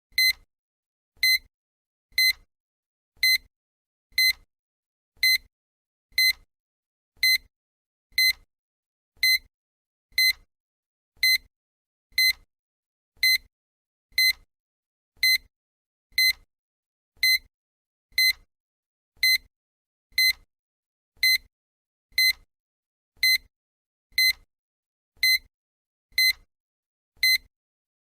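Countdown timer sound effect: a short, high electronic beep once a second, evenly spaced, marking each second of the countdown.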